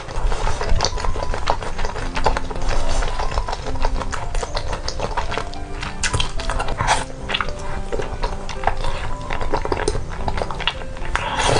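Close-miked wet chewing, smacking and slurping of thick, sauce-coated tapioca noodles (fen haozi), with bursts of louder slurping about six seconds in and near the end. Background music with held notes plays underneath.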